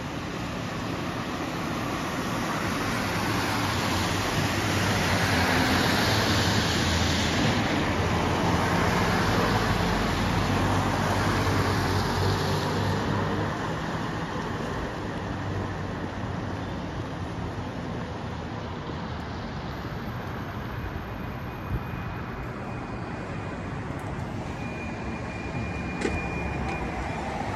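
Road traffic on a wet street: tyre hiss swelling as vehicles pass, loudest a few seconds in and then easing, over a low engine hum. A couple of sharp clicks come in the latter part.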